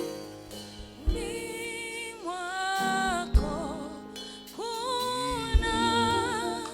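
Gospel worship music: a singer holds long, wavering notes over sustained keyboard chords, with a low drum thump every couple of seconds.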